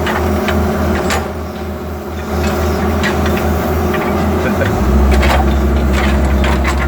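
Diesel backhoe engine running while its small bucket scrapes and clanks through rock ballast, cribbing out between the ties and under the rail. The engine note changes and becomes steadier and louder about two-thirds of the way in.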